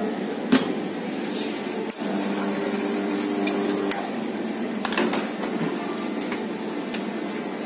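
Metal knocks and clanks of espresso-making: a sharp knock about half a second in as the portafilter is handled on the steel counter, and a clank about five seconds in as it is locked into the espresso machine's group head. A brief steady hum from the machine runs between about two and four seconds in, over a constant background hum.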